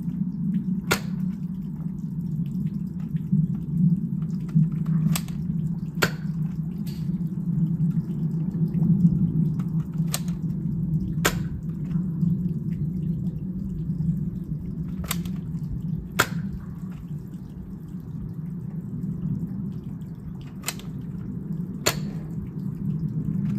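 X-Shot Blastercorn spring-powered foam-dart blaster being primed and fired over and over. Its sharp clicks come in pairs about a second apart, one pair every five seconds or so, over a steady low background hum.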